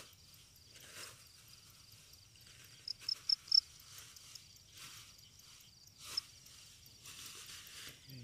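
Field crickets chirping in a steady, rapid high pulse, with one close cricket giving four loud chirps about three seconds in. Grass rustles now and then as it is pushed aside.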